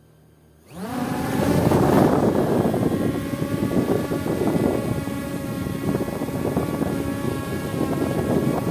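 S9S quadcopter drone's brushless motors spinning up suddenly less than a second in, rising in pitch, then running steadily with a multi-toned whine and propeller noise as it flies with its GPS switched off.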